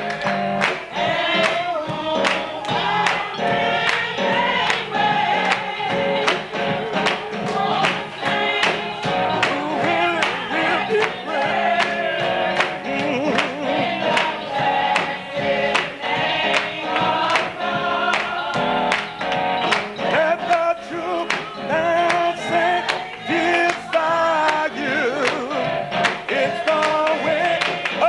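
Gospel choir singing together, with a steady beat of sharp strikes under the voices.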